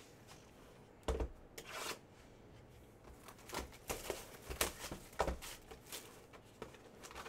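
A sealed cardboard trading-card hobby box being handled and opened: a knock about a second in, then a run of short tearing and crinkling sounds as its plastic wrap is torn off.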